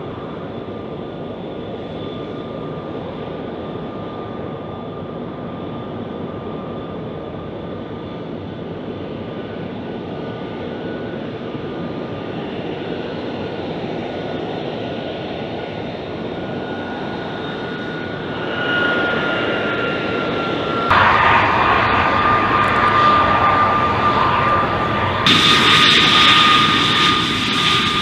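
F-35B Lightning's jet engine running with a steady rumble and a high turbine whine that slowly grows louder. The sound jumps to a louder, brighter roar about three quarters of the way through, and again a few seconds later.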